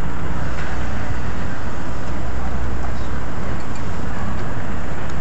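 Steady loud outdoor background rumble and hiss, with no distinct events.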